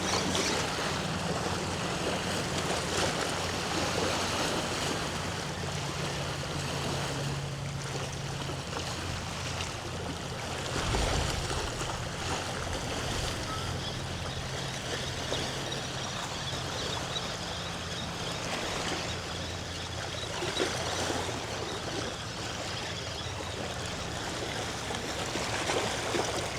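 Bay water lapping and washing along the shoreline, a steady wash of noise, with wind buffeting the microphone from about eleven seconds in. A low, steady hum sits underneath.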